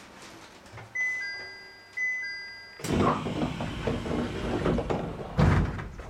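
Electronic two-note chime, a higher note then a lower one, sounding twice about a second apart. About three seconds in, louder clattering noise sets in, with a thump near the end.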